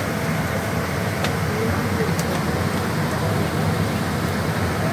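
Steady low hum and air rush of an airliner cabin during boarding, with passengers' voices faintly in the background.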